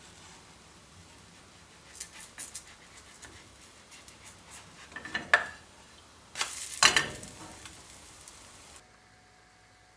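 A silicone spatula taps and scrapes in a nonstick frying pan as a pancake is worked loose and turned over, over a faint sizzle of frying. The loudest sound is a harsh scrape-and-slap of the flip, about seven seconds in.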